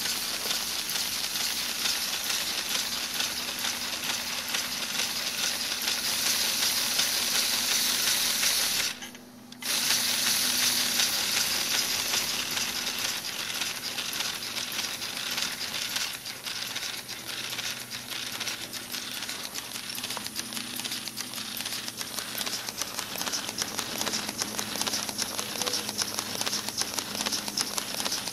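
LEGO pneumatic V8 engine running on compressed air: a steady hiss of air with fast, dense clicking and rattling from its plastic pistons, valves and crank. The sound cuts out for under a second about nine seconds in, then carries on.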